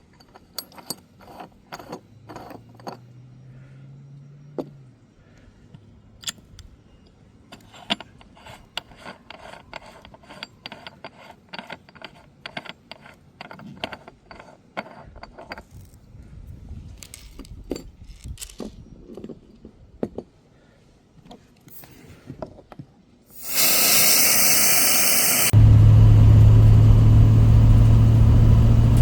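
Hand tools and small metal parts clinking and knocking at irregular intervals as they are handled and put away. Near the end a sudden loud rushing noise starts, followed by a loud steady hum.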